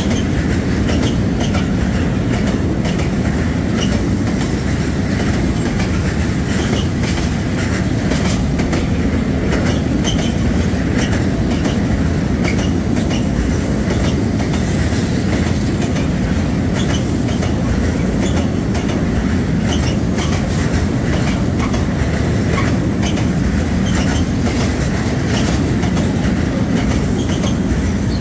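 Freight train of bogie tank wagons rolling past close by: a steady, loud rumble of steel wheels on rail, broken by many short clicks as the wheels run over rail joints.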